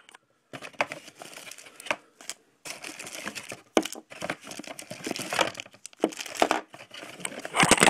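Clear plastic packing bags crinkling and rustling as they are handled and pulled out of a cardboard box. The crackling comes in bursts with short pauses, and is loudest just before the end.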